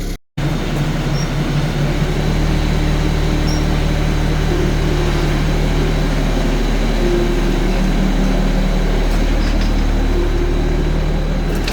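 Yanmar compact diesel tractor idling steadily, with a brief dropout in the sound just after the start.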